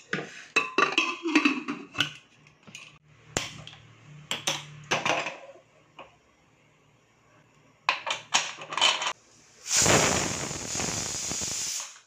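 Metal pressure cooker and its lid clattering and clinking: a run of sharp knocks and clinks in the first half and again about eight seconds in. Then a loud, steady rushing hiss sets in near the end and lasts about two seconds.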